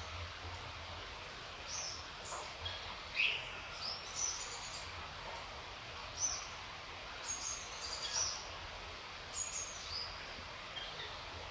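Steady hiss of gentle rain, with birds chirping over it in short high calls every second or so.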